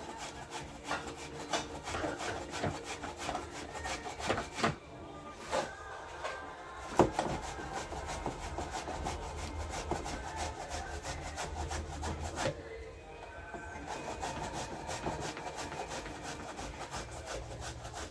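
Food being grated by hand on a grater over a pot: continuous, repeated scraping strokes.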